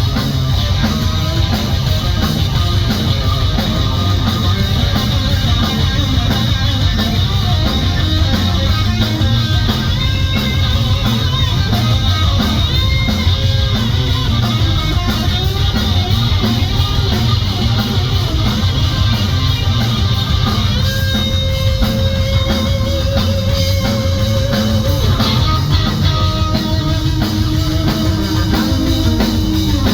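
Live rock band playing an instrumental passage: electric guitar lead over bass and drum kit. Near the end the guitar holds long notes with vibrato.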